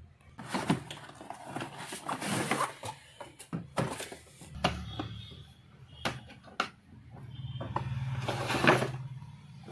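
Unboxing handling noise: a cardboard box rustling and scraping as a hard plastic carry case is slid out of it, then sharp clicks and knocks as the case is opened, and crinkling plastic wrap around the saw.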